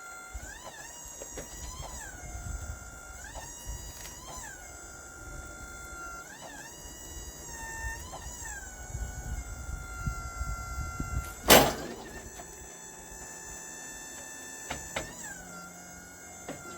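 Whine of a Wood-Mizer portable sawmill's motor, its pitch repeatedly stepping up for a second or two and then back down. One loud thunk comes about two-thirds of the way through.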